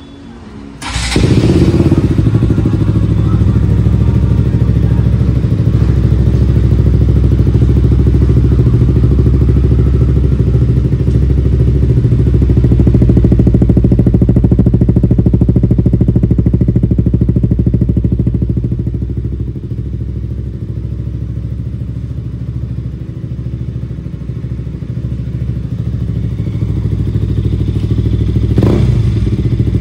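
KTM RC 200's single-cylinder four-stroke engine, breathing through an aftermarket R9 racing exhaust, starting about a second in and then idling steadily with a deep, loud note. There is a quick blip of the throttle near the end.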